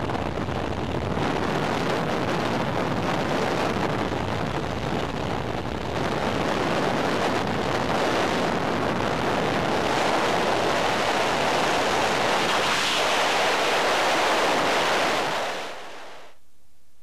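Wind rushing over the camera microphone during a skydive: a loud, steady rush of noise that dies away about a second before the end.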